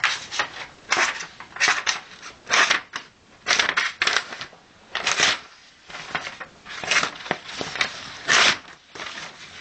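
Victorinox Spartan pocket knife's main blade sawing through material in repeated short, scratchy strokes, irregular at about one to two a second. The blade is worn and cuts unevenly for want of sharpening.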